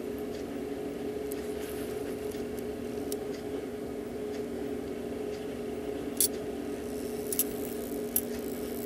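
A steady low hum runs throughout. In the second half come a few sharp clicks from the Hubert Herr cuckoo clock movement as its strike train releases and trips the half-hour strike, which now works after the bent gathering pallet pin was repaired.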